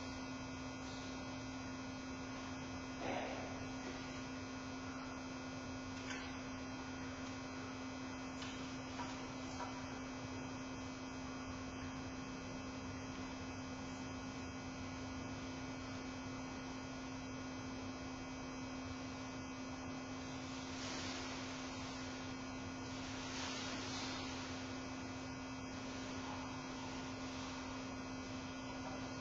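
Steady electrical hum with one constant low tone and fainter steady high tones, with a few faint brief noises about three seconds in and again around twenty-odd seconds in.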